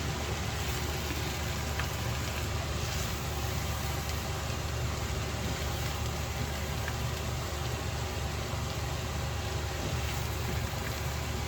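Abacha frying in oil in a pan, a faint steady sizzle with a few small crackles, over a steady low hum from a running motor.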